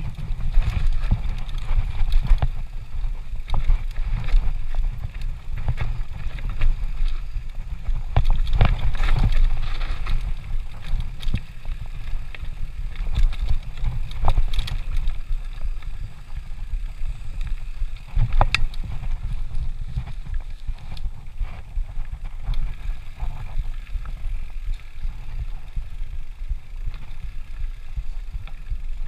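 Mountain bike riding down a rough dirt singletrack: a constant low rumble with many sharp clicks, knocks and rattles as the tyres run over rocks and roots.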